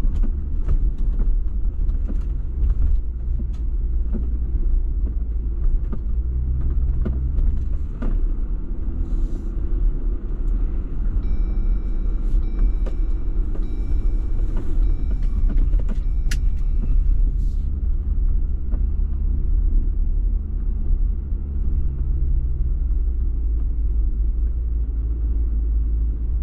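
Jeep engine running at low speed as it crawls over a rocky off-road trail, with a deep steady rumble and the engine note rising and falling. Scattered clicks and knocks come through over it.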